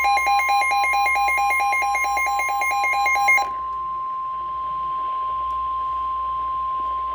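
Emergency alert attention tones: a fast two-pitch warble over a steady single-pitch alarm tone, marking the start of a new severe thunderstorm warning. The warble stops about three and a half seconds in, and the steady tone carries on alone.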